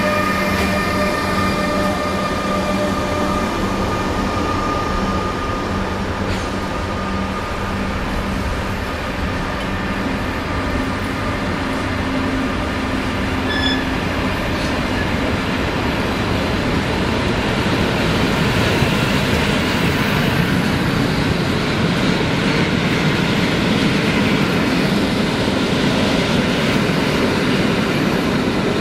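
ÖBB class 1116 Taurus electric locomotive's traction converters singing in steady tones as it pulls away, fading over the first several seconds. Passenger coaches then roll past with growing wheel-and-rail rumble and a brief squeak about halfway.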